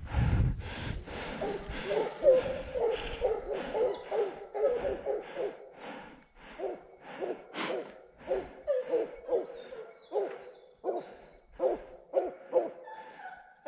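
A pack of fauve de Bretagne scent hounds baying while running a roe deer's trail: a steady run of cries, about two to three a second, going on through the whole stretch.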